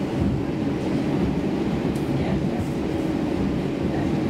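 Stockholm Metro C20F train in motion, heard from inside the passenger car: a steady low rumble of wheels on track with a faint steady hum.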